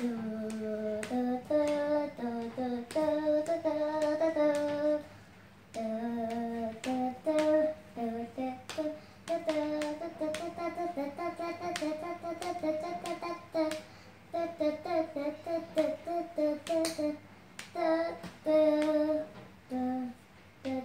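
A child's voice singing a stepped, held-note melody with short breaks, with sharp clicks scattered throughout.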